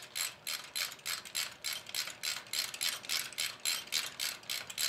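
Ratchet wrench clicking steadily, about four to five clicks a second, as it runs a nut down onto a compressor terminal stud.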